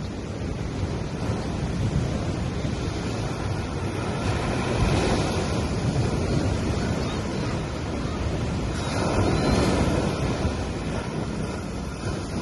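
Gentle sea waves washing onto a sandy beach, a steady wash that swells with a wave about five seconds in and again about nine to ten seconds in, with some wind rumbling on the microphone.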